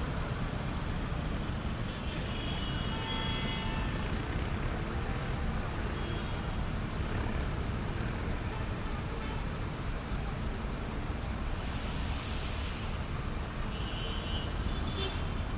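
City street traffic: a steady rumble of passing cars and heavier vehicles, with a short hiss about twelve seconds in and another brief one near the end.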